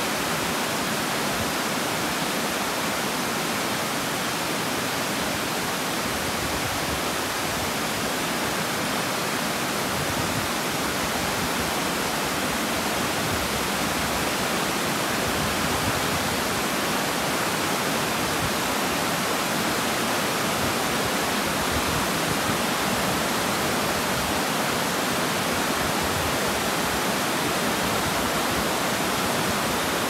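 Water pouring down a stepped stone weir into the pool below, a steady rushing with no change.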